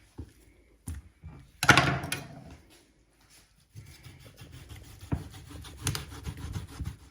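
Knife cutting up raw chicken: scraping and sawing sounds with a few sharp knocks, the loudest about two seconds in.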